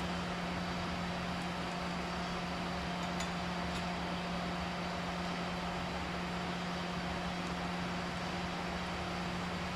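Steady machine hum with an even hiss and one constant low tone, unchanged throughout, with a couple of faint light clicks about three seconds in.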